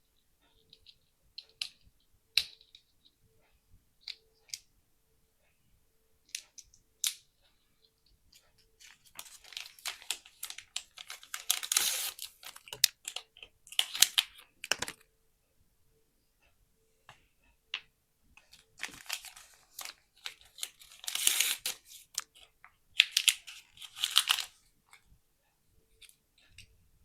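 Small hard plastic pieces clicking and tapping a few times, then two long bouts of thin plastic wrapping being torn and crinkled, typical of peeling the wrap off a Mini Brands capsule.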